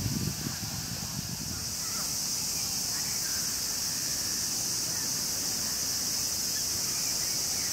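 A steady, high-pitched drone of cicadas in chorus, a little louder from about two seconds in. Faint murmur of distant voices in the first second.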